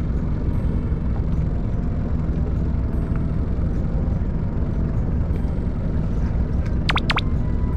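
Fishing boat's engine running with a steady low rumble. About seven seconds in come three quick, high squeaks.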